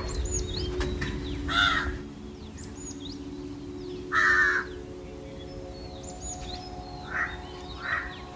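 Crows cawing: a harsh caw about a second and a half in, a longer, louder one around four seconds, and two shorter caws near the end, with thin high chirps of smaller birds in between.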